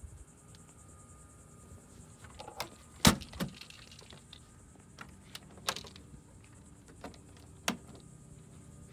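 A few scattered sharp clicks and knocks, the loudest about three seconds in, over a faint steady high hum of insects.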